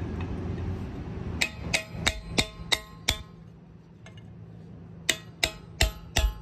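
Hammer blows on a steel cold chisel, knocking out material inside a small access hole: sharp metal-on-metal strikes with a ringing tone, about three a second. Six strikes, a pause of about two seconds, then four more near the end.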